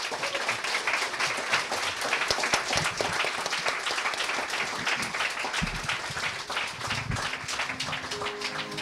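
An audience applauding at the end of a talk, a dense, even clapping that carries on throughout. A couple of low thumps come through in the second half, and music comes in just at the end.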